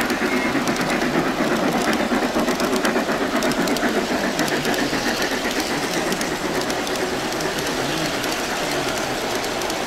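Garden-railroad model freight train rolling steadily past close by: a continuous rumble of wheels on the track, peppered with many small clicks.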